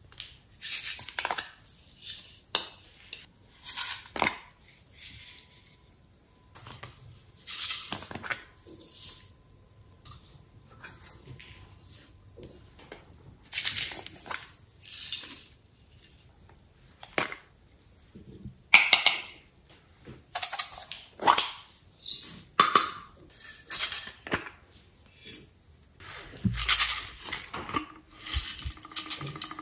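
Hands handling hard plastic novelty containers: irregular clicks, taps and scrapes of plastic, about a second apart.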